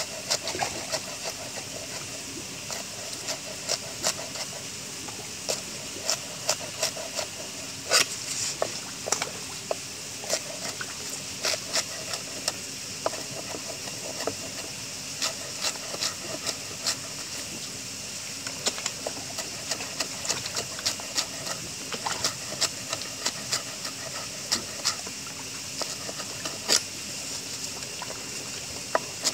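Large kitchen knife chopping leafy greens on a wooden board: irregular sharp knocks, about one or two a second, over a steady trickle of water.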